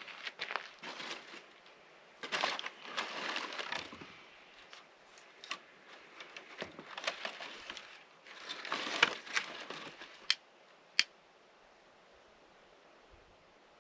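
Crunching and crinkling from something being handled, in a few irregular bouts, then two sharp clicks about a second apart.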